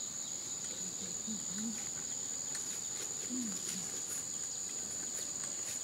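Insects droning steadily: one unbroken high-pitched tone with a fainter, lower buzz beneath it.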